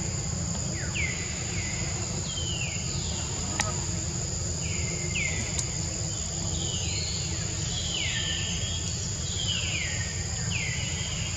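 Forest ambience: a steady high-pitched insect drone, with a run of short calls that each fall in pitch, coming about once a second, over a low steady rumble. There is one sharp click a few seconds in.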